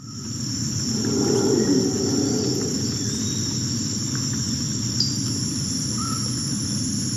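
Jungle ambience: insects chirring steadily at a high pitch over a dense low background, with a few short bird chirps. It starts suddenly.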